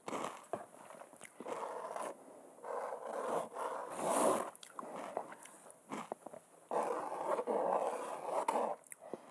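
Hand scraping and scratching at a painted canvas, in several rasping strokes a second or two long each, mixed with light scratchy clicks.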